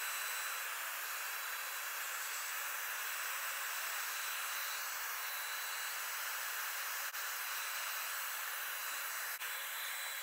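Handheld hair dryer blowing steadily, a constant rushing hiss with a faint high whine from its motor, switched off at the very end.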